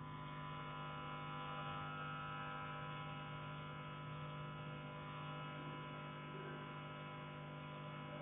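A steady electrical hum made of many even, unchanging tones, with no knocks.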